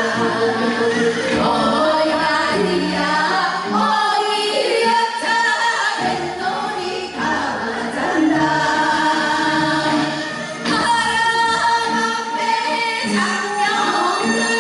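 Women singing a Korean Gyeonggi folk song (Gyeonggi minyo) together, in long, bending held notes with short breaks between phrases.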